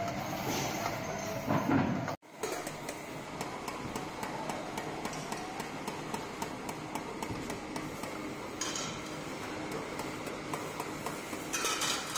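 Small, quick metallic ticks and scrapes of a pointed hand scribing tool working the surface of a perforated brass plate, with a brief drop-out about two seconds in.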